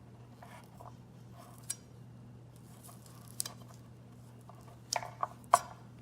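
Small handling clicks and taps as young tamarind pods are split and de-seeded by hand, scattered at first, then a quick cluster of sharper clicks about five seconds in, over a faint steady low hum.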